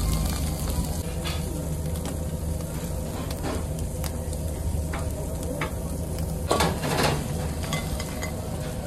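Halved spiny lobster tails sizzling and crackling on a hot grill grate over a steady low hum. About six and a half seconds in come two louder brief noises as the lobster is handled.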